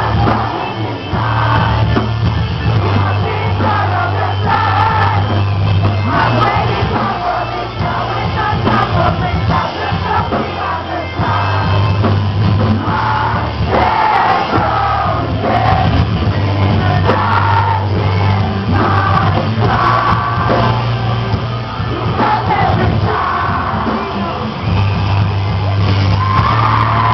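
Metalcore band playing live: a vocalist singing over electric guitars and drums, heard from among the crowd, with audience shouts mixed in.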